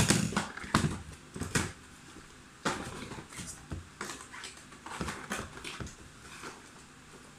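A cardboard product box being handled and opened by hand: a run of knocks and scrapes in the first second and a half, then lighter clicks and rustles as the lid and inner flaps are worked open.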